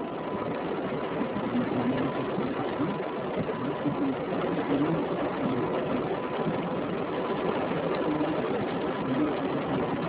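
Steady rumbling noise heard from inside a parked car in strong wind, with no breaks and a faint steady tone running under it.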